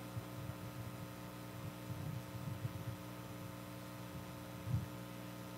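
Steady low electrical mains hum with several evenly spaced tones, picked up through the microphone and sound system. There is a faint low bump about four and a half seconds in.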